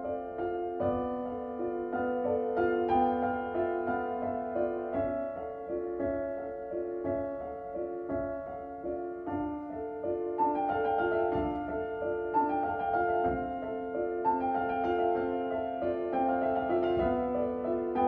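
Background piano music: a slow run of held notes and chords.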